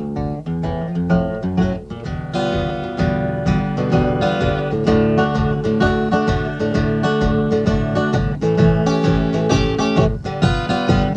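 Solo acoustic guitar playing the introduction to a country blues, picked and strummed in a steady beat. The playing becomes fuller and louder about two seconds in.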